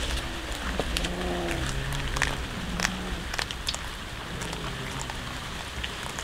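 Cat making a run of low, drawn-out growling moans, each about half a second long, mostly in the first half and once more near the end. Scattered sharp clicks run alongside.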